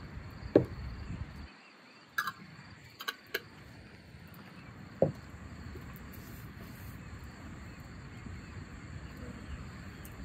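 Glass jars knocking as they are set down on a wooden table: a few short, sharp knocks in the first five seconds, then only steady quiet outdoor ambience.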